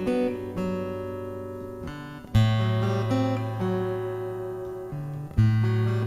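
Acoustic guitar picked with the fingers in an instrumental passage: single notes over ringing chords, with a strong low bass note struck about two and a half seconds in and again near the end, each fading slowly.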